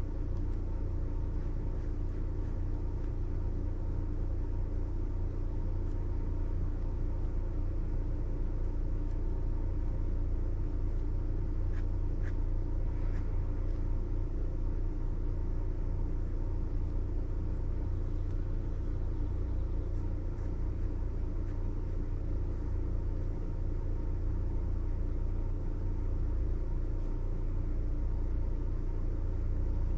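Steady low background rumble with a faint, even hum of steady tones above it, unchanging throughout. A few faint ticks come in about twelve seconds in.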